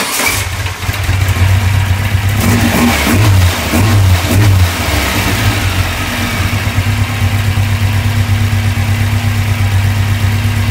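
Freshly built 2054cc air-cooled VW Type 1 flat-four with twin carburetors, just through its cam break-in, running. It comes in suddenly, is revved in a few quick blips about two to five seconds in, then settles into a steady idle.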